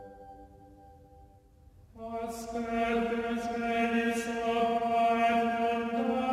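Background music in a chant style. A held chord fades away, and about two seconds in voices begin chanting long, steady notes over a drone, with a few soft hissing consonants.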